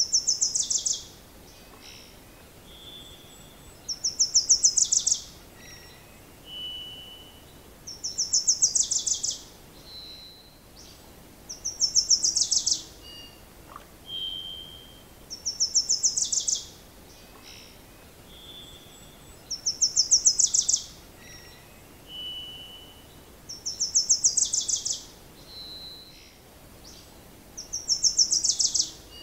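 A songbird singing the same fast trilled phrase over and over, each about a second long and coming about every four seconds, with short softer whistled notes in between.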